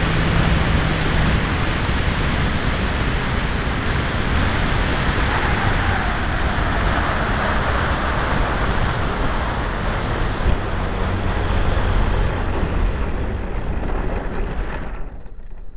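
Two-stroke glow engine (Irvine 53) of a Hangar 9 Pulse XT 40 model aeroplane running as the model taxis over grass, heard from a camera on the wing with heavy rumble and rushing noise. It cuts off suddenly at the end.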